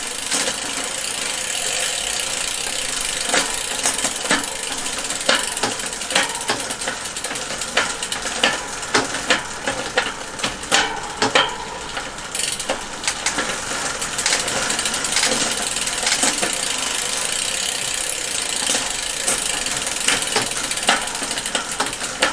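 Bicycle 1x11 drivetrain spun by hand in a repair stand: the chain running over a 38-tooth narrow-wide chainring and an 11–42 cassette through a Shimano GRX rear derailleur, with many sharp irregular clicks and clatters as it is shifted through the gears.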